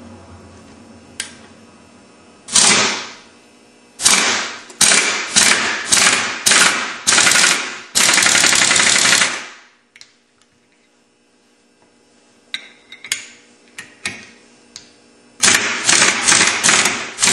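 Impact wrench hammering in repeated short bursts, with one longer burst around eight seconds in, driving the centre bolt of a flywheel puller to press an ATV flywheel off the crankshaft. After a quiet stretch with a few faint clicks, more bursts follow near the end.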